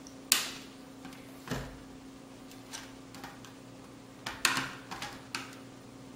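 Sharp plastic clicks and knocks from handling and prying at the parts of a New Bright RC toy car while removing its back wheels: one loud click about a third of a second in, a few scattered ones, and a quick cluster around four and a half seconds in. A steady low hum runs underneath.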